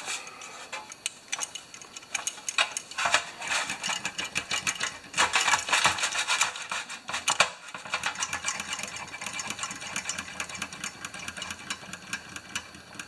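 Rapid light metallic clicking and rattling of a small Tecumseh engine carburetor's throttle butterfly and linkage being worked back and forth over a steel pan. The shaft has just been given a drop of transmission fluid to free it. The clicking comes in quick runs and is busiest about five to seven seconds in.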